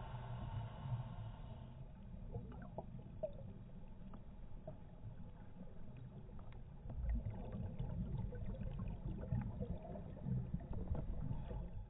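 Muffled underwater sound: a steady low rumble of water with scattered faint clicks, louder in bursts in the second half.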